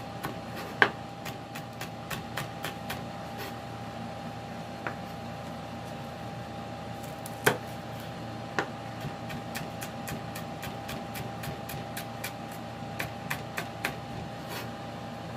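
Chef's knife cutting green chillies into thin rings on a wooden cutting board: sharp, irregular taps of the blade striking the board, often several a second, the loudest about halfway through. A steady faint hum runs underneath.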